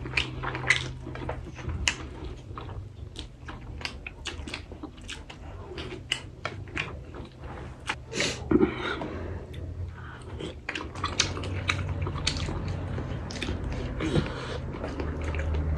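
Close-up eating sounds: chewing and biting, with many short wet mouth clicks and the odd crunch, over a low steady hum.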